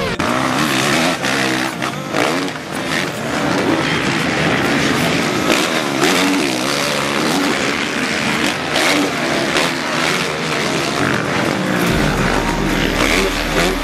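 Dirt bike engines revving, their pitch rising and falling repeatedly across several cut-together clips. A steady low rumble joins near the end.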